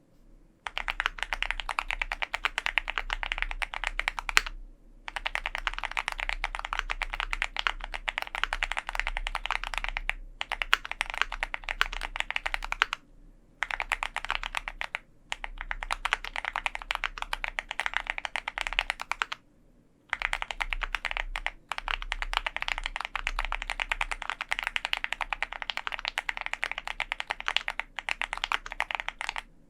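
Fast typing on a custom mechanical keyboard with lubed Holy Panda X tactile switches, GMK keycaps and an aluminum plate: a dense stream of keystroke clacks in long runs, with brief pauses between them.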